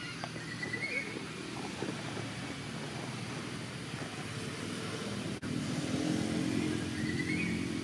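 A motor vehicle engine hums steadily in the background and grows louder after about five seconds. A small bird gives short chirps twice, once near the start and once near the end.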